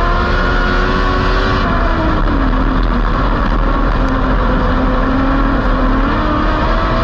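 Dwarf race car's motorcycle engine at racing speed, heard from inside the cockpit. The engine note drops about two seconds in as the car goes into a turn, holds lower through the corner and climbs again near the end.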